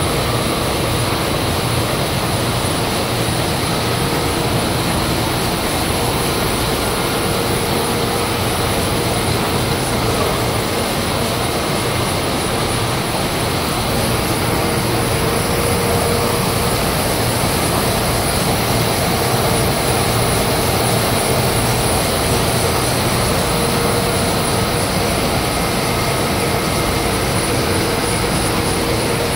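Arsoma EM280 label printing press running at a steady speed: an even, loud mechanical drone with a few steady whines, as the label web runs through its rollers.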